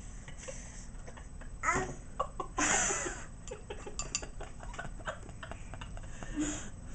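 A baby's short fussy vocal outbursts while being spoon-fed, two of them close together in the first half. A run of small clicks follows around the middle.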